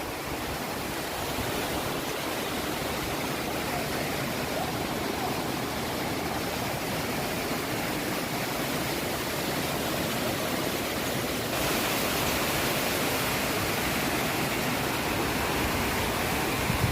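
Waterfall: a steady, even rush of falling water, turning a little louder and brighter about two-thirds of the way through.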